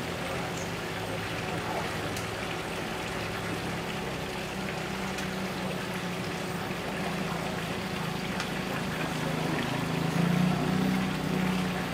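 Steady rush of running water with a low, even mechanical hum underneath.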